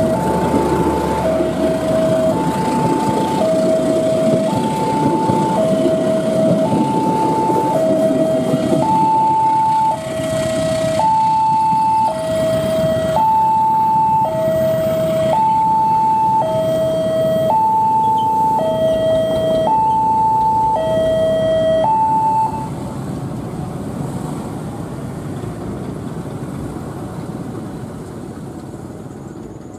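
Railway level-crossing alarm sounding a two-tone electronic warning, a high and a low note alternating about once a second, over the rumble of passenger carriages rolling past on the rails. The carriage rumble fades after about ten seconds, and the alarm stops about two-thirds of the way through.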